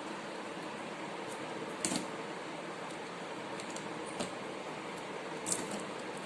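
Scissors snipping through the box packaging in three short sharp cuts over a steady background hiss.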